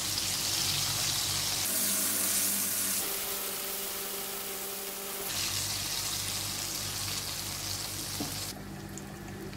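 Battered chicken strips deep-frying in hot oil, a steady sizzle, on a raised flame for the final golden browning. The sizzle jumps abruptly in level a few times.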